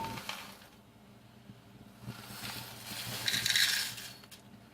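Dry cornflakes being poured into a measuring cup: a rustling hiss that starts about two seconds in, swells and fades out near the end.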